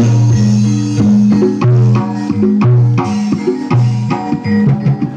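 Music played loud through a large stack of old 1990s-era outdoor speaker cabinets: a sound-system check. Heavy held bass notes change every half second or so under steady percussion.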